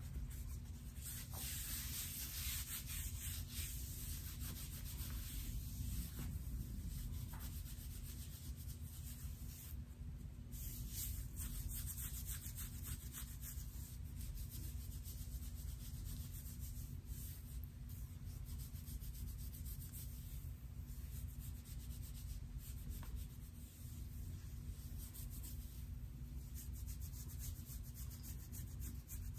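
Long painted fingernails scratching through short hair on a man's scalp: a dry, repeated rasping scratch, stroke after stroke, over a steady low hum.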